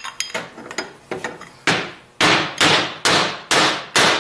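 Steel rod knocking a tight, galled wrist pin out of an aluminum piston: a few light taps, then six heavier metal knocks about two a second, each ringing briefly.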